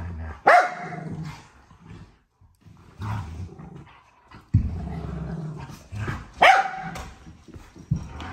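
Dogs play-fighting: a dog barks sharply twice, about half a second in and again near six and a half seconds, with growling in between.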